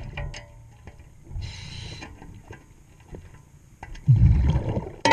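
Scuba regulator breathing underwater: a hissing inhale about a second and a half in, then a loud, low, bubbling exhale about four seconds in. Light clicks of a metal tool on hardware come between them, and a sharper click with a brief ring comes at the very end.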